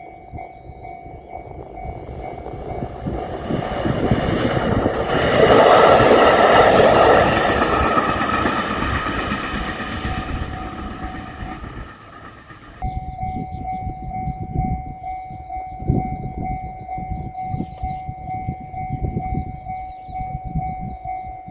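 A level-crossing alarm rings steadily while a JR Shikoku 9000 series rail transport vehicle passes over the crossing. The train swells to its loudest about five to seven seconds in and then fades, leaving the rumble and knock of wheels on the rails. The alarm drops out briefly about twelve seconds in, then resumes.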